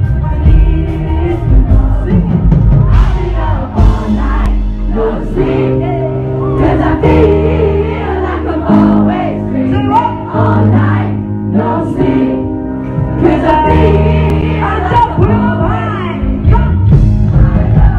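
Live pop-rock band playing at full volume, a male lead singer singing into a microphone over the band, with many voices singing along.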